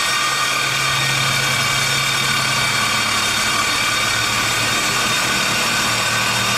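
Evolution S210CCS metal-cutting circular saw running under load as its blade cuts through half-inch steel plate, a loud, steady whine with a hiss.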